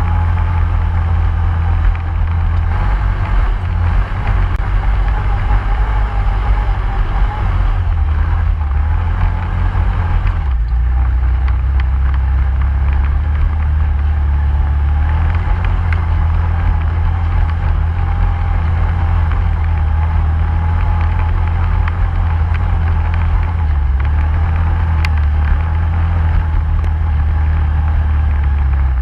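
ATV engine running steadily under way, a low drone with a brief dip and shift in its note about ten seconds in.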